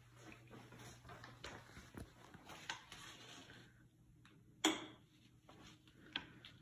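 Faint rustling and soft footsteps of someone walking while holding a phone, going from tile onto carpet, with one sharp click about two-thirds of the way through and a few lighter ticks near the end, over a low steady hum.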